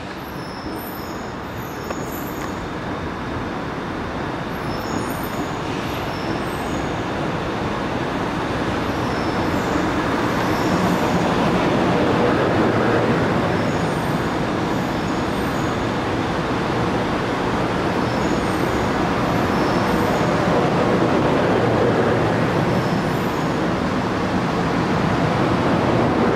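Seoul Metropolitan Subway electric train pulling in alongside the platform. Its running and wheel noise grows steadily louder over about the first twelve seconds, then stays loud as the cars roll past.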